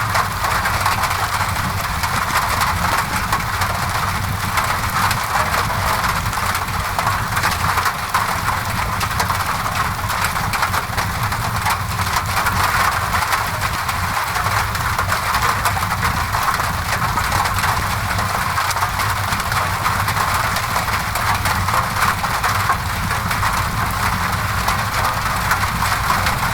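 Rain on a window mixed with a crackling fireplace: a steady, even hiss of rain over a low rumble, with small fire crackles scattered throughout.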